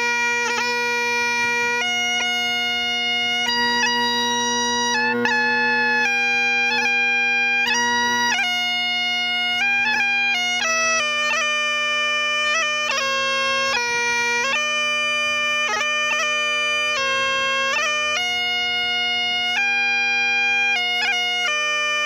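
Solo Great Highland bagpipe playing a slow tune: steady drones sound under the chanter melody, which steps from note to note with quick grace-note cuts between them.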